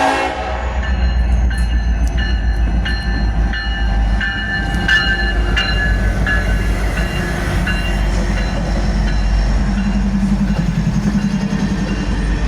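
Union Pacific coal train rolling past: a heavy, steady low rumble of diesel locomotives and loaded coal cars, with regular clacks from the wheels and high metallic squealing tones. The locomotive horn cuts off right at the start.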